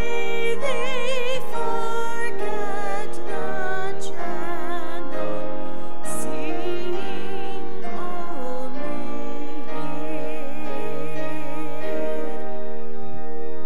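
Slow, tender sung music: a solo voice holding long notes with wide vibrato over sustained accompaniment, a hymn-like melody. The music dies away near the end.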